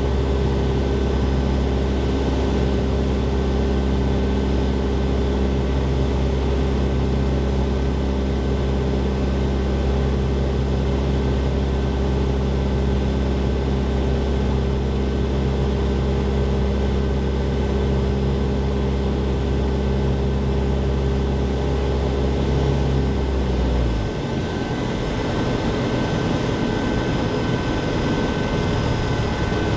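Light aircraft's piston engine and propeller droning steadily, heard from inside the cockpit on final approach. About 24 seconds in the drone drops abruptly as the power is pulled back for landing, leaving mostly the rush of air over the airframe.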